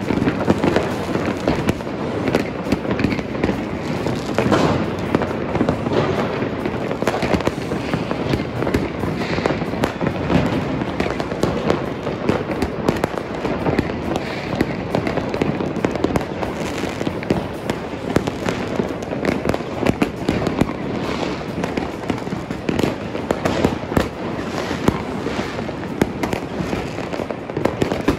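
Fireworks going off all over a city at once: a continuous, dense barrage of bangs, pops and crackles from many launches, near and far, with no let-up.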